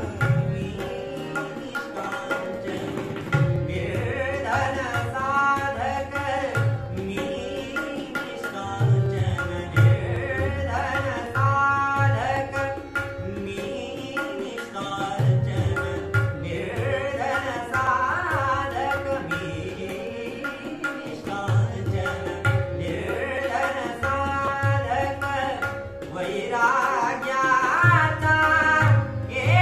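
Male voice singing a Marathi light-classical song in drawn-out, ornamented phrases, with a harmonium sustaining chords underneath and a tabla keeping a steady rhythm of strokes.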